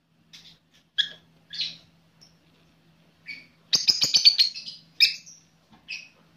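Pet lovebirds chirping in short, high calls, with a loud, rapid run of chattering calls a little past the middle.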